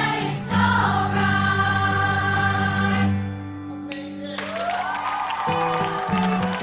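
Music with sung, choir-like voices holding long notes; the music thins about three seconds in, then a rising sweep leads into a new phrase.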